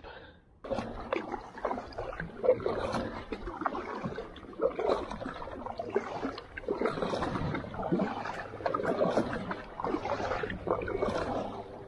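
Double-bladed kayak paddle strokes dipping and splashing in the water, swelling and fading with a stroke every second or two, with water washing along the kayak's hull.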